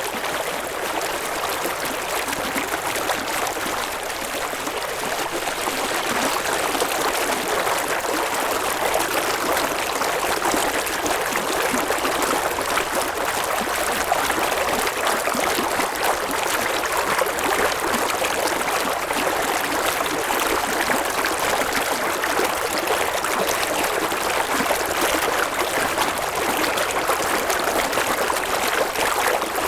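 Shallow river running over stones, a steady rushing and babbling of water with no break.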